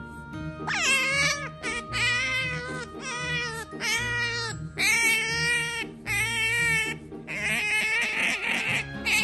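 Cat meowing over and over: about seven long, wavering meows, roughly one a second, the last one harsher and more strained.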